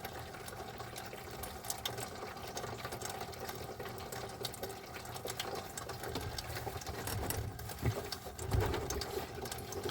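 Small 12-volt water pump in a camper van's fresh-water system running steadily, pumping water out of the jug, with light clicks and knocks of handling.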